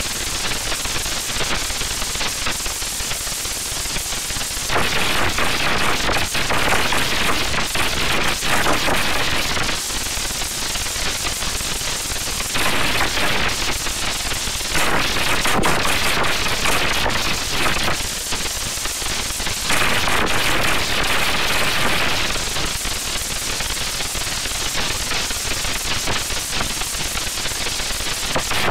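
Loud, harsh crackling noise made of rapid cracks, swelling and easing in stretches of a few seconds.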